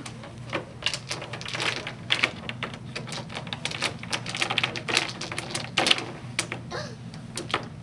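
Dice clicking and rattling against each other as a child scoops up a long line of them, many quick irregular clicks with a few louder ones about five and six seconds in.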